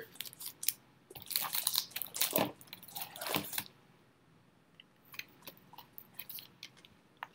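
Crinkling and rustling of Panini football trading cards and their packaging being handled up close, in irregular bursts for the first few seconds, then a few faint clicks and taps.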